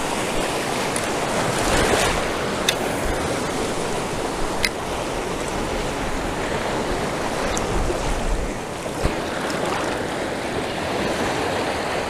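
Ocean surf: small waves breaking and washing through the shallows close to the microphone, a steady wash of noise.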